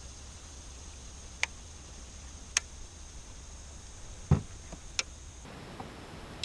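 A handful of separate sharp clicks and one duller knock from fishing tackle being handled in a kayak after a missed strike, as the rod and lure are taken in hand; the knock, about four seconds in, is the loudest.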